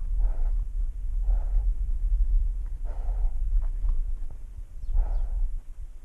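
A cat breathing heavily right at the microphone: four noisy breaths, one to two seconds apart, over a constant low rumble.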